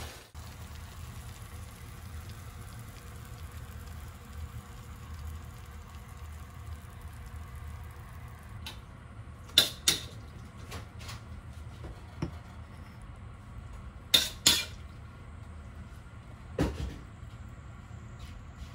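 Crockery and cookware: scattered sharp clinks and knocks, several in close pairs, as a ceramic plate is set down and food is tipped onto it from a metal wok. A low steady hum lies underneath.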